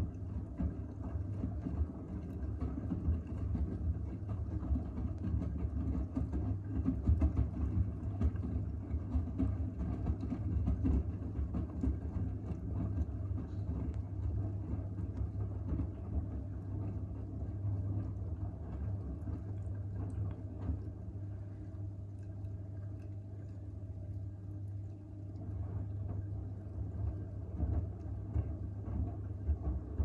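Front-loading washing machine in its wash phase, the drum turning a load of laundry through foamy water, with sloshing over a steady low hum.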